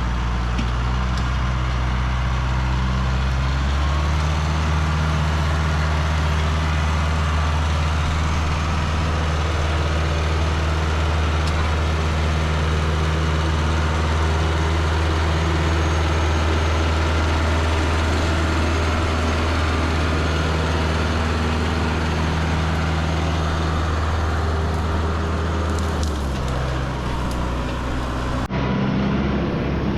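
Tractor engine running under work, its revs stepping up about four seconds in and dropping back near the end.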